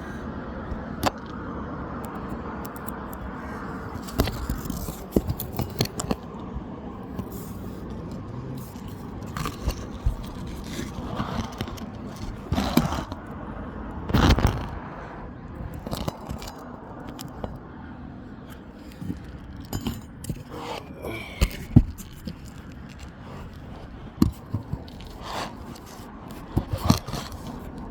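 Irregular scraping and sharp clicks of asphalt roof shingles being worked on during a repair attempt on a creased shingle.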